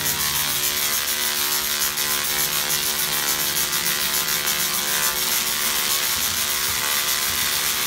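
Tesla coil firing continuously, its sparks discharging into the air as a steady crackling buzz.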